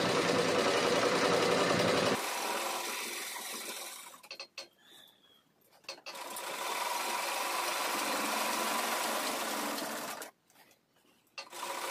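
Sewing machines running and stitching cloth. The run is steady, but the machines fall silent for about two seconds around four seconds in and again for about a second near the end.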